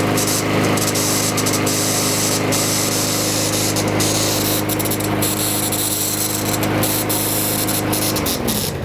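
Lawnmower's small engine running steadily, with a noise from the recoil starter, where a pawl that no longer retracts, its small plastic retaining pin broken, catches on the flywheel cup. Near the end the engine is shut off and winds down, its pitch falling.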